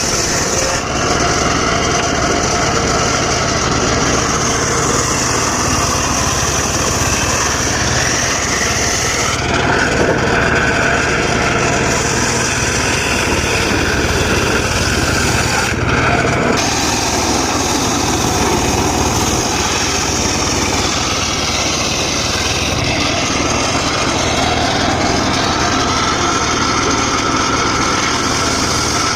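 Engine-driven mobile circular saw cutting dry teak wood, running steadily with a high blade whine over the motor hum. The whine drops away briefly twice, about ten and sixteen seconds in.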